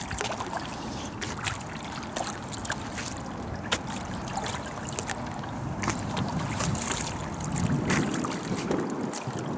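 Hooked stingray splashing at the water's surface as it is pulled in on a line, a scatter of short sharp splashes over a steady wash of background noise.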